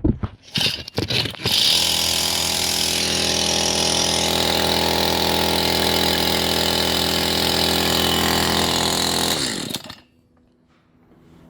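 Stihl MS 181 C-BE two-stroke chainsaw pull-started: a few quick sputters on the cord pulls, then it catches about a second and a half in and runs steadily at idle. Near the end it is switched off and winds down.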